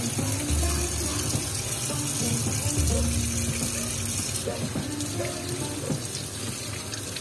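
Tap water running steadily into a stainless steel sink as hands are rubbed and rinsed under the stream, with background music.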